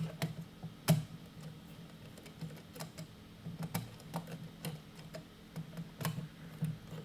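Screwdriver loosening the screw terminals on a Taco pump controller's terminal blocks: irregular light clicks and ticks, a few sharper than the rest.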